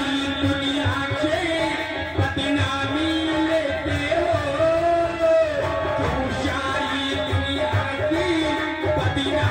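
A solo voice singing a melodic stage song through a microphone and loudspeakers, with long held and gliding notes, over a hand drum keeping a steady beat.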